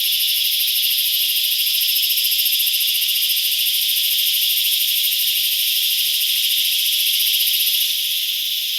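Dense chorus of cicadas buzzing loudly and without a break, a high, fast-pulsing drone that eases slightly near the end.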